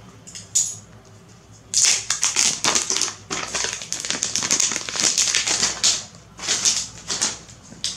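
Clear plastic shrink-wrap being torn and peeled off a phone box, crinkling. A short crackle comes about half a second in, then dense crinkling from about two seconds in to about six, and a few more short bursts near the end.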